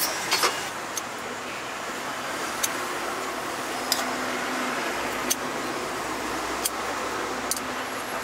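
Steady hum of city street traffic, with scattered sharp light clicks of a metal spoon as spread is scooped from a jar and dropped onto a crepe, about one click every second or so.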